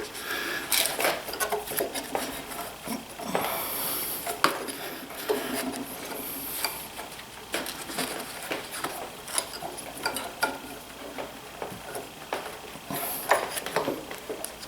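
Hand work on the drive belt and pulleys of a DeWalt 735 planer with its motor off: scattered light metallic clinks, taps and rubbing as the tight belt is forced onto the pulley.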